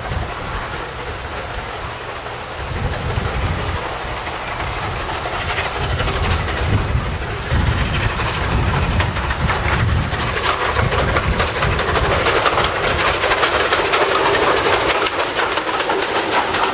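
Steam locomotive and its coaches approaching and passing: a steam hiss that grows louder, with the clickety-clack of the coach wheels over the rail joints as the train goes by near the end.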